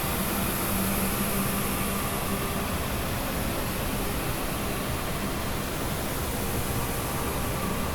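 Experimental noise-drone music: a dense, steady wash of hiss-like noise across the whole range. Faint held tones under it fade out about two and a half seconds in and come back near the end.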